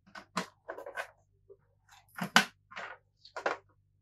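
A dozen or so sharp, irregular clicks and taps of parts being handled and pressed into place inside an open PlayStation 3 Fat console.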